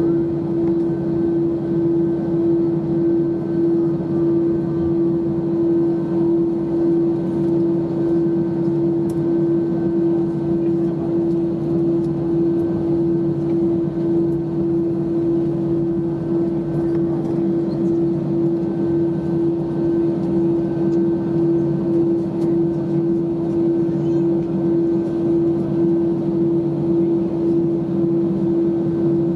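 Cabin noise of an Airbus A320-214 taxiing, heard from a window seat over the wing: the CFM56 engines' steady hum with one droning tone, over a constant rush of noise.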